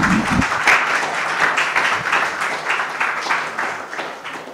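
Audience applauding: a dense patter of many hands clapping that thins and dies away near the end.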